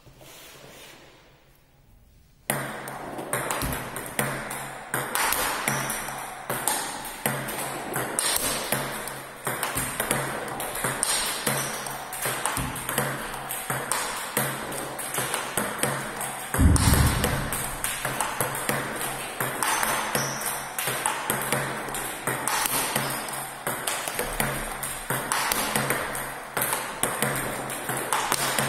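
Table tennis rally: the celluloid ball clicking off paddles and table in a quick, steady rhythm of backhand counters and forehand topspin strokes, starting about two and a half seconds in. A low thump stands out about halfway through.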